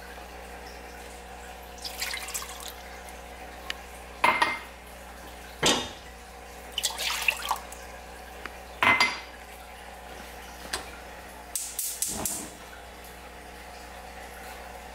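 Milk poured from a cup into a stainless steel pot in several short splashing pours, with the cup knocking against the pot three times with a ringing clink, over a steady hum.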